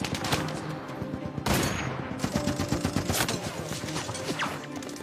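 A firefight: a fusillade of rifle and automatic-weapon shots, densest in a rapid run from about one and a half to three and a half seconds in.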